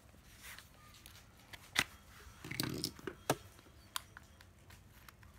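A few sharp clicks and knocks, with a short scuffling noise midway, from a Makita 12V cordless screwdriver and its battery being handled. No motor is running.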